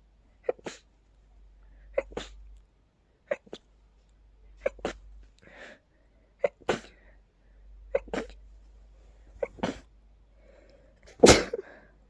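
A rapid run of about eight human sneezes, one every second and a half or so, each a quick double burst, with short breaths drawn between. The last sneeze, near the end, is the loudest. It is a sneezing fit brought on by pollen.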